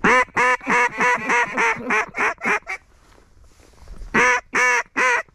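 Mallard duck call blown by a hunter: a run of about ten loud quacks that get shorter and quieter over about three seconds, then a second run of quacks starting about four seconds in.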